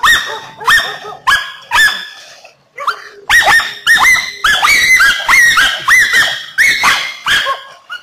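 German hunting terrier barking over and over, about two barks a second. The barking pauses briefly about two and a half seconds in, resumes a little faster, and stops near the end.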